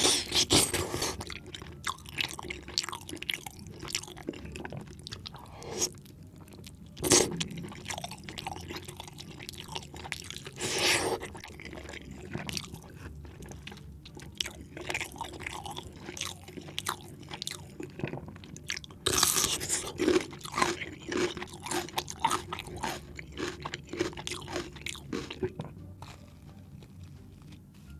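Close-miked eating of spinach chicken curry: steady wet chewing and smacking, broken by a few louder crunchy bites.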